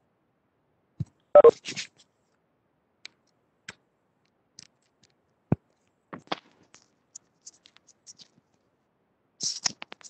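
Scattered clicks, taps and rustles of a microphone or device being handled on a video call, with dead silence between them. The loudest is a short cluster about a second and a half in, and another cluster comes near the end.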